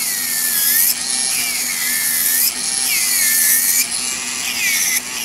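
Electric nail drill with a cylindrical bit grinding through an artificial nail tip to shorten it: a gritty hiss over the motor's whine, which dips in pitch and recovers with each pass, about four passes of a second or so each.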